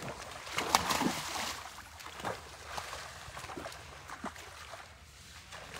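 Water splashing and sloshing in short, irregular bursts as a seine net is hauled in by hand through shallow water, with a few sharper splashes in the first second or so.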